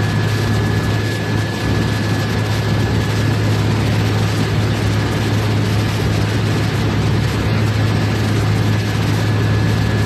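Pilot boat's diesel engines running steadily under way, a deep even drone, with a steady rush of water and wind over it and a thin high whine throughout.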